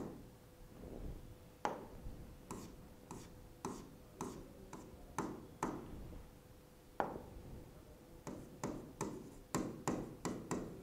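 Pen writing on an interactive whiteboard screen: a string of short, sharp taps and clicks at uneven spacing, well over a dozen, as the pen tip meets the board with each stroke.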